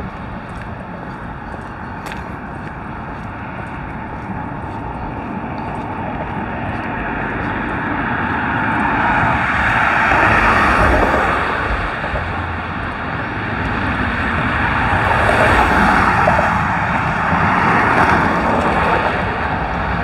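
Road traffic passing on the adjacent highway: tyre and engine noise of cars going by, swelling to two peaks, about ten and fifteen seconds in.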